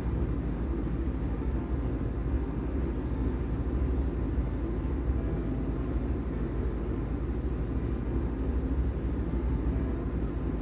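Steady low rumbling noise from a pan of semolina and jackfruit cooking over a gas burner while it is stirred with a wooden spatula.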